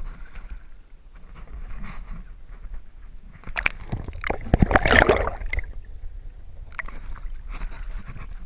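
River water splashing and sloshing as a Murray cod is released by hand and the camera is dipped under the surface and back out. The loudest splashing comes about four to five seconds in.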